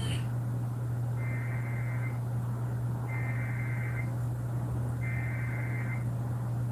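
Emergency Alert System SAME header heard over the radio: three data bursts of about a second each, a second apart. Each is a pair of steady high tones, the digital code that opens an emergency alert broadcast. A steady low hum runs underneath.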